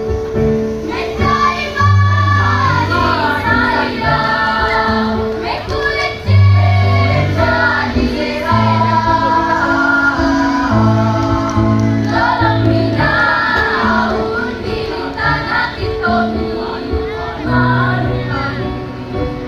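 A junior high school girls' choir singing together, with instrumental accompaniment and a line of low, held bass notes underneath.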